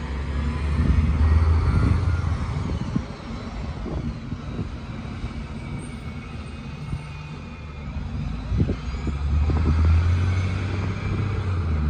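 City bus pulling away and driving off, a low engine rumble that swells twice, early and again near the end.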